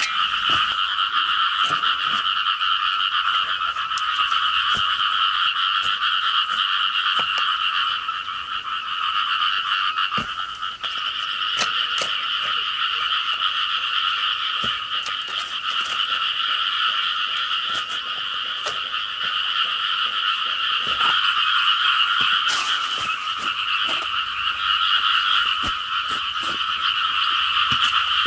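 A dense, steady chorus of calling creatures in two high pitches, unbroken throughout, with the dull chops of a hoe striking soil now and then.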